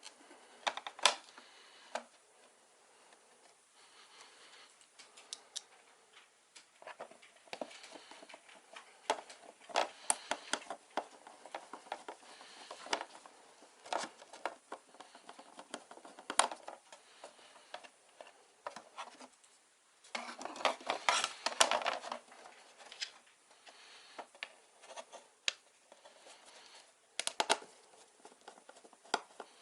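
Irregular small clicks, taps and scrapes of hands handling computer parts and tools, with a denser stretch of scraping and clatter about twenty seconds in.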